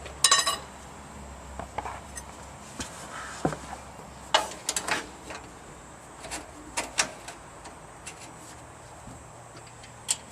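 Metal clinks and taps at irregular intervals as a steel hinge pin is slid into a bulkhead door hinge, with a short rattle just after the start.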